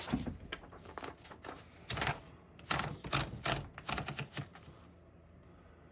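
1924 Remington Portable typewriter's mechanism clicking and clacking as it is worked by hand: a run of irregular sharp mechanical clicks that stops about four and a half seconds in.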